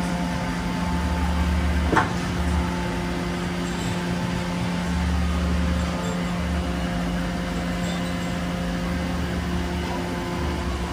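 Steady hum of a powered-up CNC vertical mill's auxiliary machinery (electric-motor pumps, chiller and fans), with several held tones over an uneven low rumble. A single sharp click about two seconds in.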